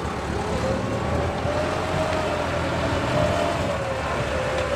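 Massey Ferguson 375 tractor's diesel engine running steadily as it pulls a disc furrowing planter through the soil, with a whine over it that rises a little and eases back.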